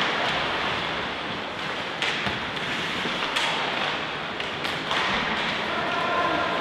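Steady noise of play in an indoor sports hall, with a few sharp knocks or thumps.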